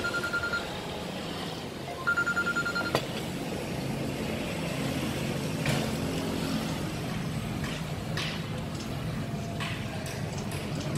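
Steady low rumble of passing road traffic. About a second apart in the first three seconds come two short bursts of rapid, high-pitched electronic beeping, and a few faint clicks follow later.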